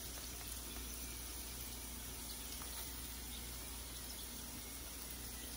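Flat dough pastries frying in a pan: a faint, steady sizzle.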